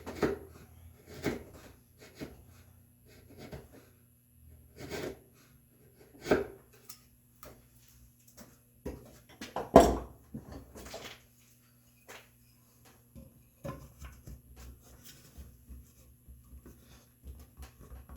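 Hand-tool work on red oak: irregular taps, knocks and short scrapes as the wood is pared and handled, with the loudest knock about ten seconds in.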